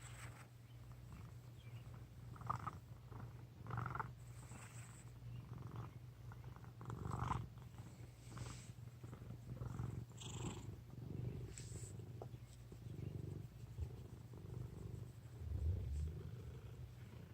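A domestic cat's low, steady rumble, swelling with each breath about once every second and a half.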